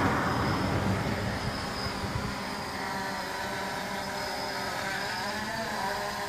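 A car passes with a rushing sound that fades over the first two seconds, leaving the whine of a small quadcopter's propellers as it climbs and hovers, its pitch wavering as the motors change speed.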